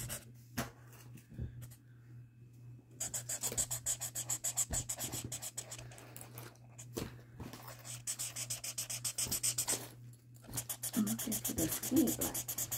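Marker tip scribbling rapidly back and forth on sketchbook paper, a fast scratchy rhythm of many strokes a second. It starts about three seconds in and pauses briefly about ten seconds in.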